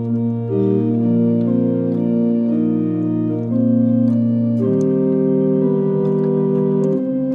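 1830 John Abbey pipe organ with mechanical action, played on its manual: sustained chords that change every second or so over a held bass note, which moves about two-thirds of the way through.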